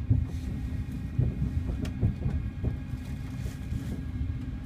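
Train running, heard from inside the carriage: a steady low rumble with irregular knocks from the wheels on the track.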